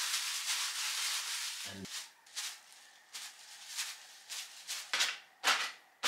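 Crumpled brown paper rustling: a continuous scrunching rustle for about the first two seconds, then short, irregular dabbing rustles as it is pressed and rubbed onto wet paint for a marbled finish.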